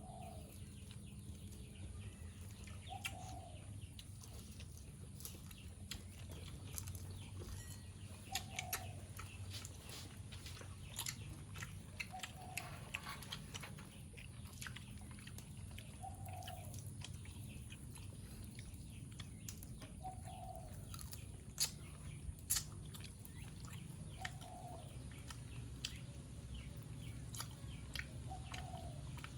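Chewing, with many short scattered clicks and crunches, while a bird's short call repeats about every four seconds.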